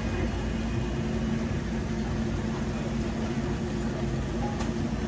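Steady machine hum over a low background rumble, unchanging throughout.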